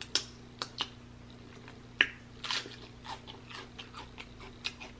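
Close-miked mouth sounds of eating sticky barbecue beef ribs: wet lip smacks, finger licking and chewing, about a dozen short, sharp smacks at irregular intervals.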